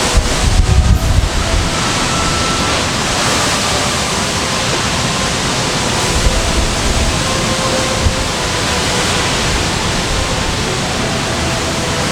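Typhoon storm wind and wind-driven rain rushing steadily, with gusts buffeting the microphone about a second in and again around six to eight seconds in.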